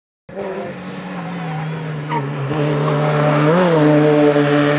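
Small hatchback race car's engine running hard at high, steady revs, growing louder as it comes up the hill, with a brief rise and fall in pitch about three and a half seconds in. It starts abruptly a moment in.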